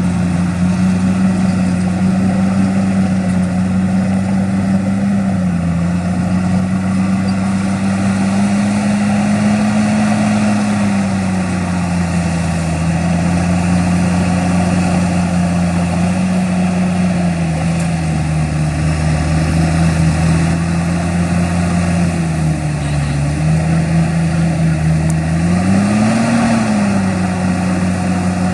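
Heavy diesel engine of earthmoving machinery running steadily, its pitch drifting slightly, with a brief rev near the end.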